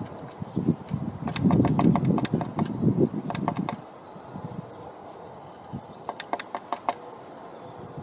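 Blue tit pecking at the wooden rim of a nest box's entrance hole: several runs of rapid sharp taps, with louder dull thumping and rustling from the box in the first half.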